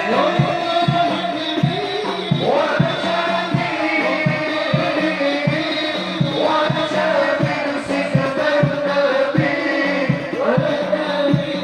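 A group of men chanting sholawat devotional song together, carried by a steady beat of hand drums at about four strokes a second.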